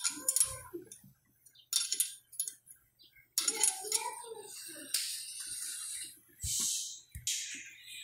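A steel wrench clinking and tapping against a Toyota Corolla's brake caliper as the caliper guide pin bolt is turned: an irregular run of light metallic clicks and clinks, some with a short ring.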